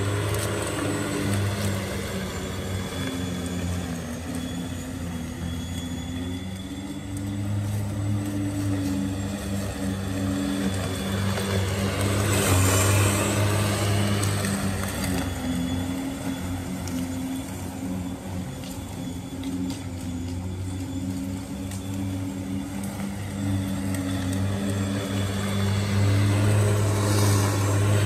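Sun Joe corded electric lawn mower running with a steady hum as it is pushed across the grass. It grows louder about twelve seconds in and again near the end as it passes close by.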